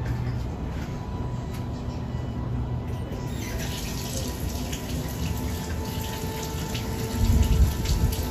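Steady rain falling and running water, heard as an even hiss that grows brighter a few seconds in, with faint music underneath and a few low thumps near the end.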